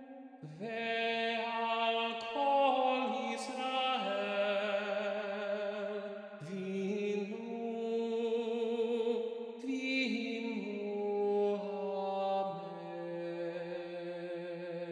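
Several voices singing slow, sustained harmony, holding each chord for a second or two before moving together to the next.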